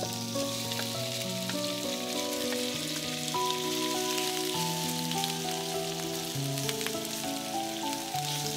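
Strips of raw beef sizzling steadily as they fry in hot oil in a frying pan, with a few light clicks of a wooden spatula moving them. Soft background music with sustained, slowly changing notes plays along.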